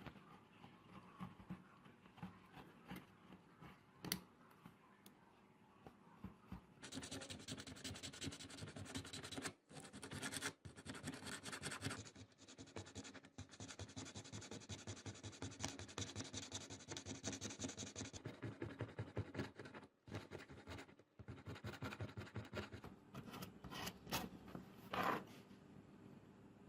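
Rapid, rough scratching strokes of hand work on a surface. They run in long spells broken by a few short pauses and grow denser and louder about a quarter of the way in.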